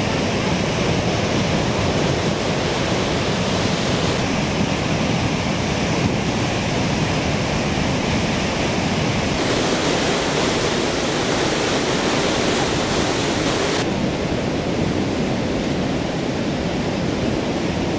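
Gullfoss waterfall, the Hvítá river plunging into its canyon: a loud, steady rush of falling water. Its hiss grows brighter and duller a few times.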